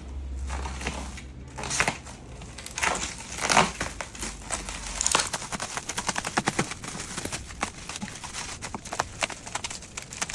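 Crinkling and rustling with many small irregular clicks and knocks, from an electric gold-melting furnace and its packing being opened and handled by hand.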